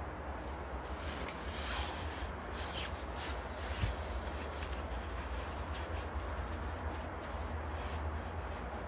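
Faint rubbing and scraping sounds over a steady low hum, with a short knock about four seconds in.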